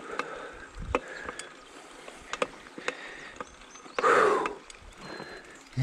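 Mountain bike rattling and clicking irregularly as it rolls over a rough grass path, with one loud exhale from the rider about four seconds in, a sign of the effort of the ride.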